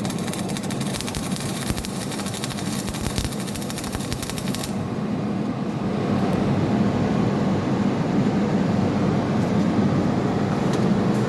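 MIG welding arc crackling and sizzling during a 2G practice weld, stopping abruptly about five seconds in. A steady low hum carries on after it.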